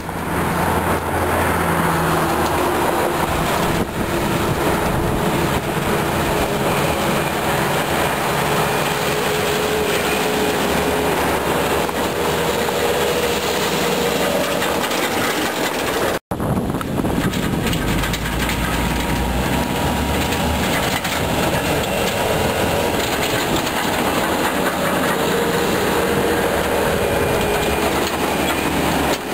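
Bobcat S330 skid-steer loader running and driving close by, a steady engine drone with clattering and rattling from the machine. The sound cuts out briefly about halfway through.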